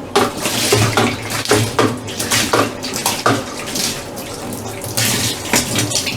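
Water running and splashing in uneven gushes, with short knocks and clatter of things being handled.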